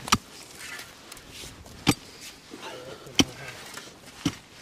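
Shovel striking into garden soil four times, a sharp blow roughly once a second.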